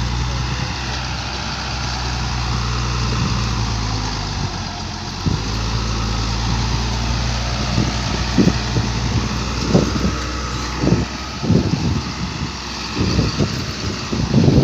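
Hino FL truck's diesel engine running steadily as the laden truck drives over rough dirt ground. From about eight seconds in it is joined by repeated short low thuds.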